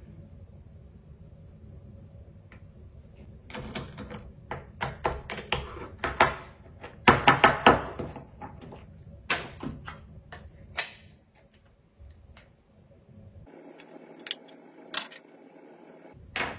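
A quick irregular run of small clicks and taps, tools and phone parts being handled on a hard work surface during a phone teardown, starting a few seconds in and thinning out to a few isolated clicks near the end.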